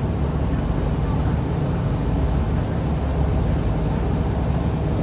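River ferry's engine running, a steady low rumble heard on board.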